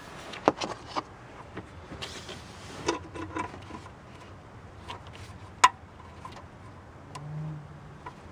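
Small clicks, taps and rustles of a hand and a plastic funnel working at a power steering reservoir under the hood, with one sharper click a little past halfway and a brief low hum near the end.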